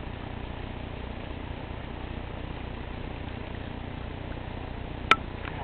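Steady outdoor background noise with a low rumble, broken by one sharp click about five seconds in.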